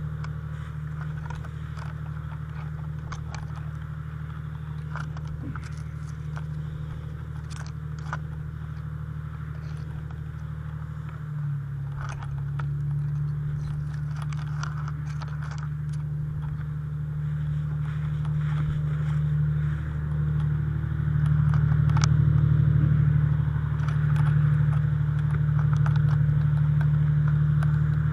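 Fire engine's engine running steadily, growing louder about eleven seconds in and again around twenty seconds as it gets closer, with footsteps crunching through dry leaves.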